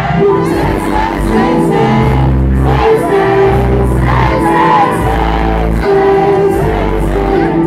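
Loud live music over a venue sound system: deep, sustained bass notes changing every second or so under a sung vocal melody.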